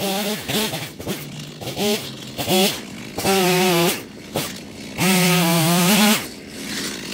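Stihl two-stroke chainsaw revved in short throttle blips that fall back to idle. It is then held at full throttle twice for about a second each, dropping to idle between.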